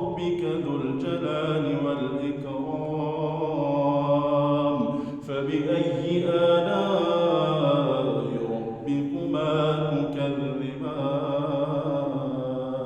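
A man's solo Quran recitation in slow, melodic tajweed chant, holding long drawn-out notes with brief pauses for breath, with no music or effects behind it.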